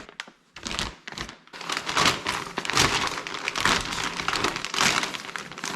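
Plastic packaging crinkling and rustling as a new Sea-Doo reverse cable is taken out by hand, with a few clicks in the first second.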